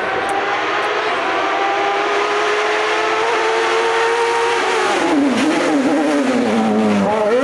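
Race car engine at full throttle, its note climbing steadily as it accelerates; about two-thirds through the pitch drops sharply and wavers up and down as the car slows for a corner with downshifts and throttle blips, then rises again near the end.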